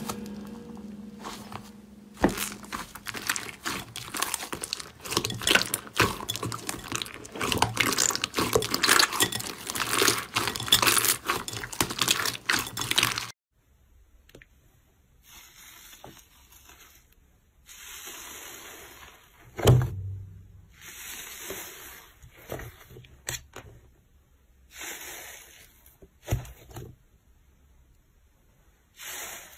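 Slime being handled close to the microphone: for about thirteen seconds a dense run of crackling and popping clicks, then an abrupt change to quieter, softer squishing and scraping with pauses and one thump.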